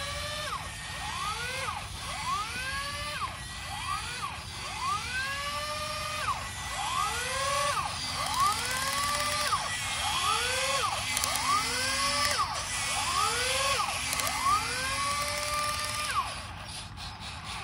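Small electric drive motors of RC model tractors whining, the pitch rising and falling back over and over, a little more than once a second, as the throttle is pumped with the chained tractors bogged in mud. The whining stops near the end.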